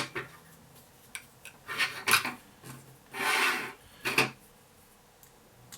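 Sharp clicks and light knocks of small hard parts and a hand tool being handled on a workbench, with a short scraping rub a little past three seconds in, as a small drone frame is set down and handled after assembly.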